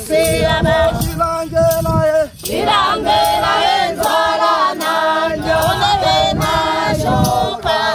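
A group of Hadza men and women singing together in several voices, with a sharp beat about twice a second. The singing drops out briefly a little after two seconds in, then resumes.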